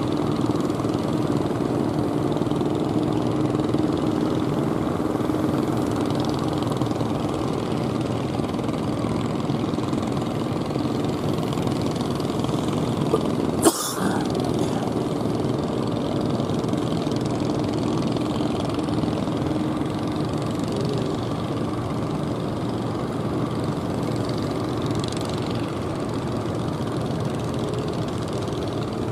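Fishing boat engine running steadily. A sharp click and a brief break come about halfway through.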